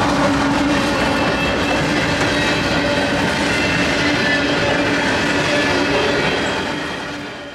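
Freight train of covered grain hopper cars rolling past, a steady loud rumble of steel wheels on the rails, fading out near the end.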